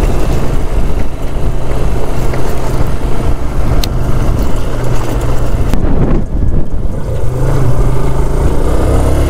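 A motorcycle riding along the road, its engine and the rush of wind making a loud, steady low rumble.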